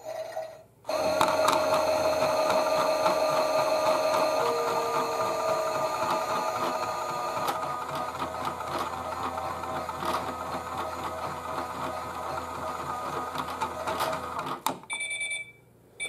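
Toy washing machine spinning its drum: its small electric motor starts about a second in and runs steadily with a whine and light rattle, then stops near the end. The machine then gives a few short, high electronic beeps.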